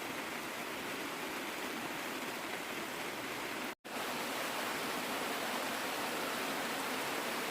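Steady hiss of heavy rain, cut by a brief moment of total silence a little under four seconds in.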